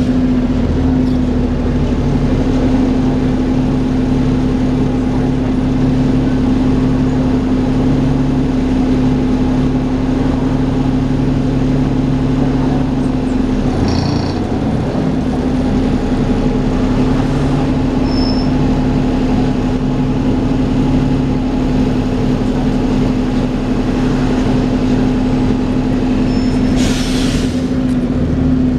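Dennis Trident 2 double-decker bus running, with a loud steady whine over the engine note: the vacuum-cleaner-like 'hoover' sound these buses are known for. The engine note shifts about halfway through, and a short hiss of air comes near the end.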